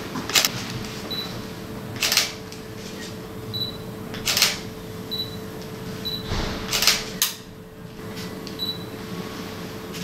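Sleep-lab room sound: a steady electrical hum, a short high beep repeating every second or two, and about five brief rustles.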